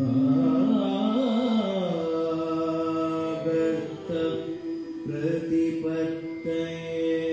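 A low voice singing a slow Carnatic-style chant. It moves through gliding, ornamented turns for about two seconds, then holds long steady notes over a faint steady drone.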